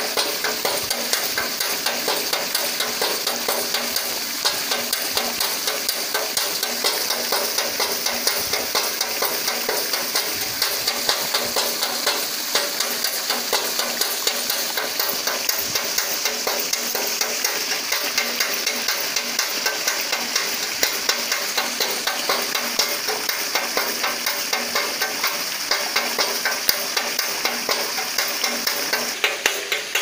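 A homemade water-wheel rat and bird scarer: water from a pipe splashes steadily onto a small paddle wheel, while the turning mechanism knocks on tin in a rapid, even rhythm of about three knocks a second.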